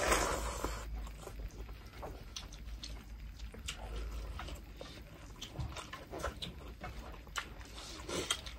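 Close-miked mukbang eating: wet chewing and lip-smacking from two people eating rice and goat meat in broth with their fingers, heard as many small irregular clicks and smacks.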